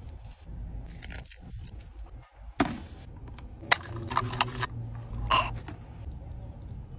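Gloved hands handling a fast-food meal: rustles, sharp clicks and scrapes of the paper box and food, with a straw stirred in a cup of soda making a brief squeak.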